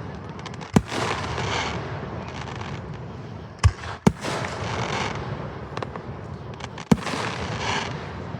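Fireworks display: four loud aerial shell bangs, one about a second in, two close together near the middle and one near the end, with crackling and smaller pops in between.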